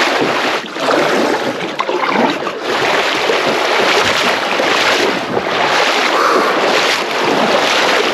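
Creek water splashing and rushing close to the microphone: a loud, uneven noise with brief dips.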